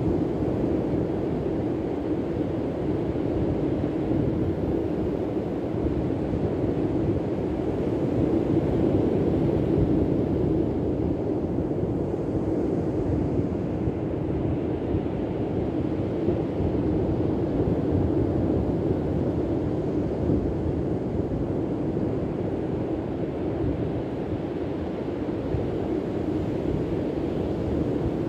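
Steady rushing noise of sea wind buffeting the microphone, mixed with surf at the shore, swelling slightly now and then.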